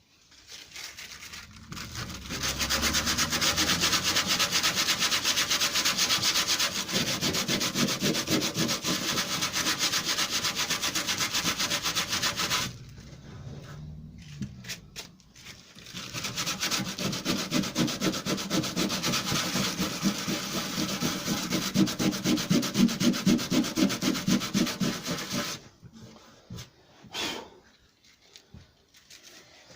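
Sandpaper sanding hardened metal filler in the holes of a lawnmower deck: a steady, rapid scraping in two long spells. It breaks off for a few seconds in the middle and stops again a few seconds before the end.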